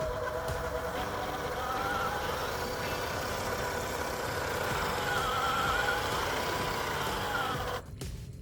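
Electric motor and gears of an MN128 RC off-road truck whining as it is driven, the pitch wavering up and down with the throttle. The sound cuts off abruptly near the end.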